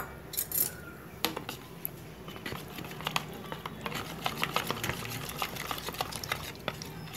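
Steel spoon stirring a thin cornflour-and-water slurry in a plastic bowl: a few knocks in the first second and a half, then rapid clicking and scraping of the spoon against the bowl.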